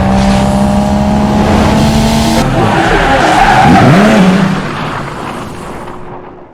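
Loud car sound, an engine with tyres skidding, that starts suddenly, holds steady and then fades out over the last two seconds.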